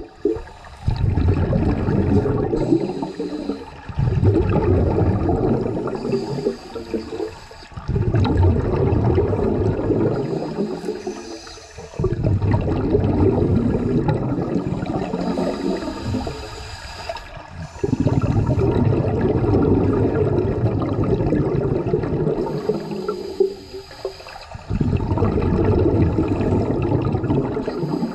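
Scuba regulator exhaust bubbles heard underwater: a diver's exhalations come out as long bubbling rushes, six of them, each starting suddenly and fading, with short quieter pauses between breaths every four to six seconds.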